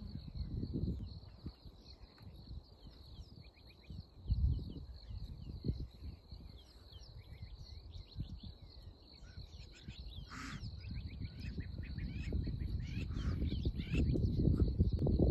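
Outdoor bush ambience: many birds chirping and calling over a steady high-pitched insect drone, with a low rumble that grows louder near the end.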